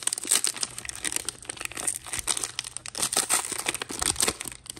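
Wrapper of a Prestige football card pack crinkling and tearing as it is ripped open, a dense run of irregular crackles.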